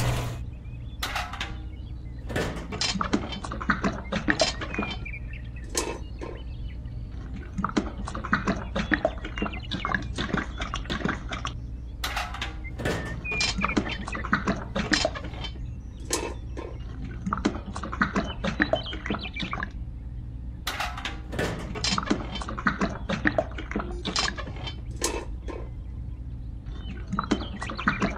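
Irregular clicks, taps and light metallic knocks from a small miniature concrete mixer and a small tin bucket as they are handled and wet concrete is poured, over a faint steady low hum.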